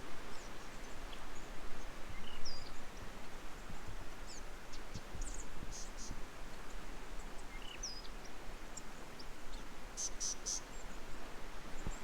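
Outdoor bush ambience: a steady rushing noise with scattered faint, high chirps, and a short rapid clicking trill about halfway through and again near the end.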